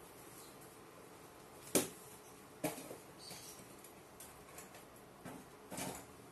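Quiet room tone broken by a few short, sharp clicks, the loudest about two seconds in and others near three and six seconds, with faint high chirps in the background.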